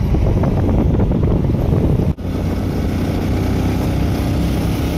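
Motorcycle riding at road speed: steady wind buffeting on the microphone over the engine's running hum. The sound drops out for an instant about two seconds in, then carries on the same.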